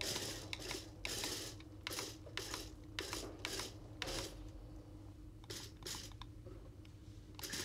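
Remote-controlled toy robot dog's small wheel motors whirring in short, irregular spurts, about one or two a second, as it is driven back and forth on a tile floor.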